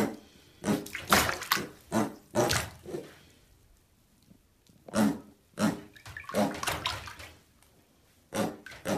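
Baby pig splashing about in a tub of shallow water: short, irregular splashes and sloshes with brief pauses between them.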